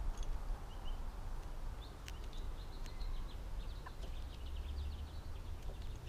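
Songbird chirping in a quick series of short, high notes for a few seconds, over a low steady rumble, with a few faint clicks.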